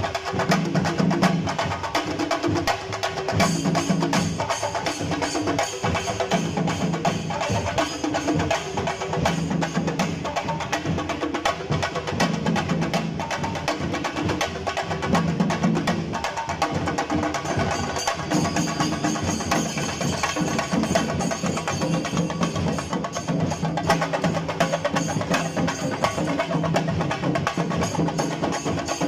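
Shinkari melam: Kerala chenda drums played in a fast, dense, continuous rhythm, in an ensemble with cymbals.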